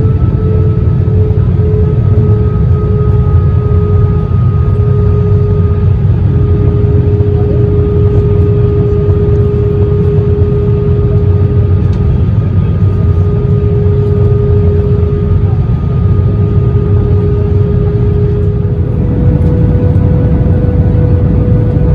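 Airbus A321 cabin noise during approach: a steady deep rumble of airflow and IAE V2500 turbofan engines, with a steady engine tone that drifts slowly lower. Near the end the tone steps a little higher as the engines spool up.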